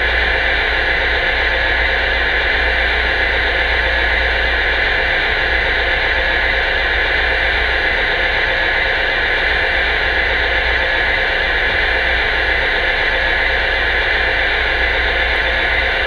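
Lionel 57-foot mechanical reefer's onboard sound effect of a diesel refrigeration generator, running steadily through the model's small speaker.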